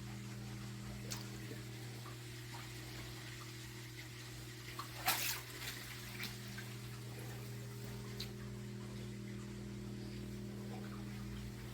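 Steady electrical hum of a mains-powered machine running, with a few faint clicks and a short burst of noise about five seconds in.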